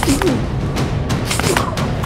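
Dramatic action-film music with several sharp, shot-like cracks spread unevenly over it, as in an edited gunfight.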